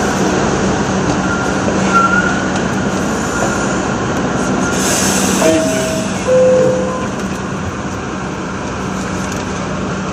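R62A subway car standing at a station with a steady hum from its equipment; about five seconds in a short hiss of air, then a two-note falling chime, the door-closing signal.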